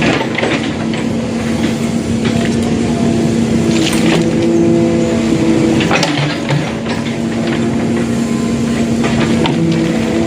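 Hydraulic excavator's diesel engine running steadily under load, with a couple of sharp metallic knocks about four and six seconds in.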